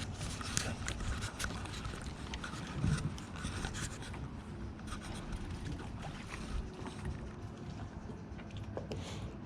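Steady low rumble of a small fishing boat on the water, with scattered light clicks and knocks of fishing tackle and line being handled.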